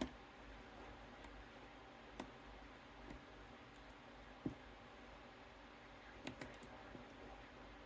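Faint, sparse metallic clicks of a lock pick and tension wrench working the pins of a 7-pin Goal Z lock during single-pin picking, with a quick cluster of three clicks about six seconds in.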